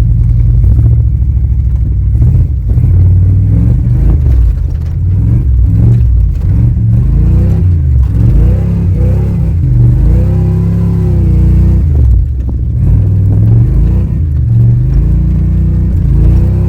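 A 1994 GMC 1500's 350 (5.7 L) V8 revving up and falling back again and again while the truck turns donuts on dirt. The exhaust cutout is closed, so the engine is heard through the normal muffler.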